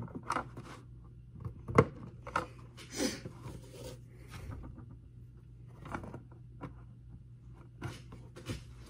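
Plastic toy playset pieces being handled and fitted together: scattered light clicks and knocks, the loudest about two seconds in, with a brief rustle around three seconds. A faint steady low hum runs underneath.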